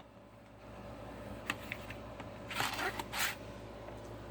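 DVD case being handled: a few light clicks about a second and a half in, then two short scraping rustles around the three-second mark.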